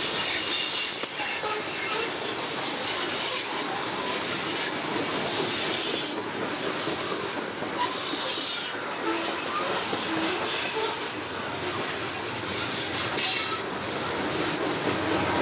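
Freight train of open hopper cars rolling past close by: a steady rumble of steel wheels on the rails with a high-pitched hissing squeal from the wheels that comes and goes every second or two.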